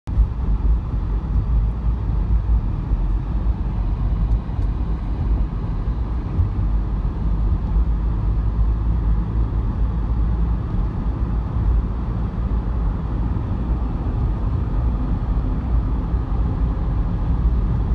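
Steady low rumble of a car driving on an ice- and snow-covered highway, heard from inside the cabin: engine and tyre noise with no sudden events.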